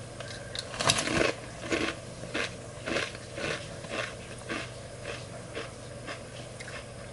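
Potato chips being chewed with the mouth close to the microphone: sharp crunches about twice a second, the loudest at the first bites about a second in, growing fainter as the chewing goes on.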